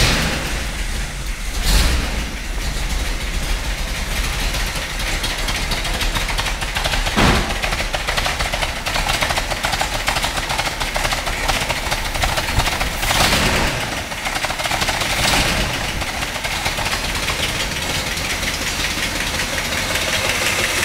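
A 1970 Challenger's 426 Hemi V8 with two four-barrel carburetors catching as it starts and then idling, swelling briefly a few times. Under the idle runs a little tick, which the builder means to trace by checking the rocker adjustment.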